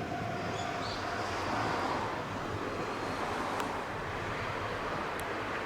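Steady rushing noise of a moving train, with no clear rhythm, mixed with wind on the microphone.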